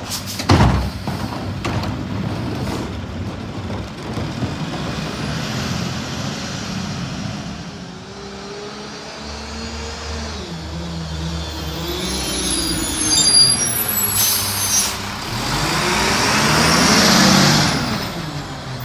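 Mack MRU garbage truck's engine as the truck drives up and passes close by, its pitch rising and falling through gear changes and loudest near the end as it goes past. Air brakes give high squeals and a short hiss about twelve to fifteen seconds in.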